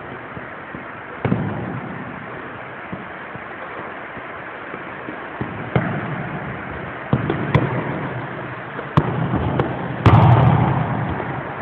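Irregular sharp thuds of a football being kicked and bouncing on a hard floor, each echoing in a large hall, over a steady background hiss. The loudest knock, with a longer rumbling tail, comes about ten seconds in.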